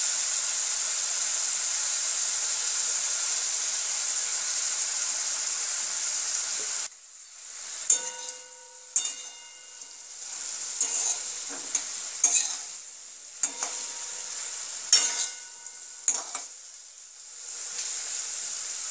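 Stir-fry sizzling steadily in a metal wok as soy sauce goes in. About seven seconds in the sizzle drops and a metal spatula scrapes and knocks against the wok in a string of strikes, each leaving a brief metallic ring. The sizzle swells again near the end.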